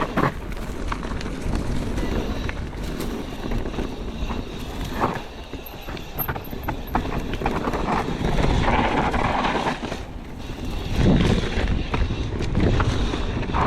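Mountain bike running fast down a rough dirt trail: wind rumbling on the microphone, tyres crunching and the bike rattling over rocks and roots, with frequent sharp knocks.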